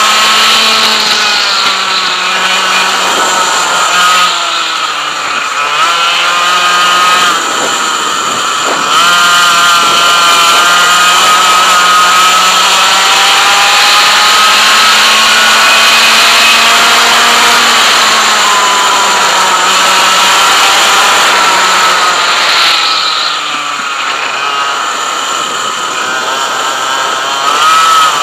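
100cc two-stroke kart engine running hard, heard onboard, its pitch climbing on the straights and dropping three times as the kart slows for corners.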